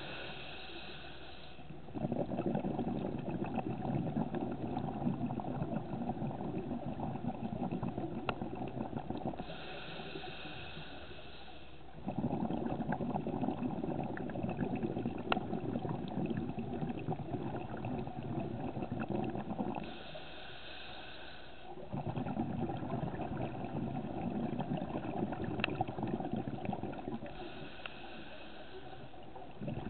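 Scuba diver breathing through a regulator underwater: a hissing inhale of about two seconds, then a long bubbling exhale, the cycle repeating about every ten seconds, four times.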